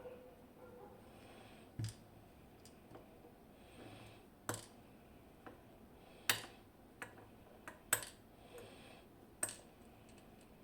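TESA T60 lock cylinder and its small metal parts being handled while it is taken apart: about seven sharp, irregularly spaced clicks and taps, the loudest a little past halfway.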